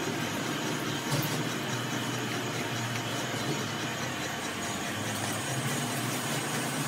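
A steady low mechanical hum of machinery running in the workshop, with a single light click about a second in.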